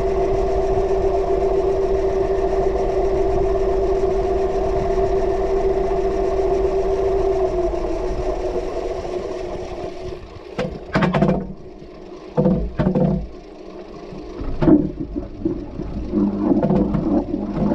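Washing machine running, heard from inside the drum: a steady motor hum that drops slightly in pitch about seven seconds in and dies away near the middle. Several irregular loud knocks and splashy bursts follow, and a lower hum starts up near the end.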